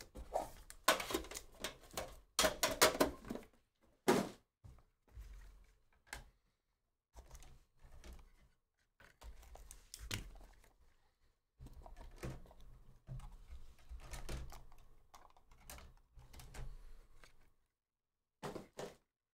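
Hands handling a small cardboard Panini Immaculate pack box and its packaging. A dense cluster of knocks and clicks comes in the first few seconds, then quieter scrapes and taps as the box's seal is cut and it is slid out of its sleeve.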